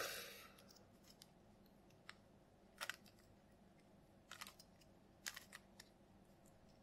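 Faint, sparse plastic clicks of a pin-studded Rubik's cube's layers being turned one-handed, about six clicks spread irregularly over several seconds. A short breathy burst comes at the very start.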